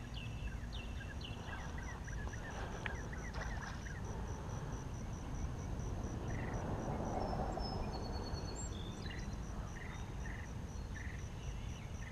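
Pondside ambience: scattered short bird chirps and calls, and a high insect call pulsing evenly about three times a second, over a low steady rumble.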